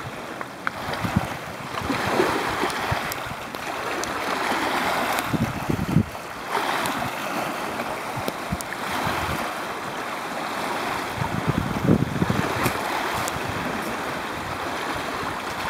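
Small lake waves washing onto a pebble shore, swelling and falling back every few seconds, with some wind on the microphone.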